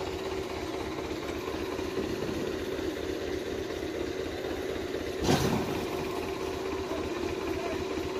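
Belarus 510 tractor's diesel engine running steadily while pulling a fully loaded sugarcane trolley, with one brief loud burst about five seconds in.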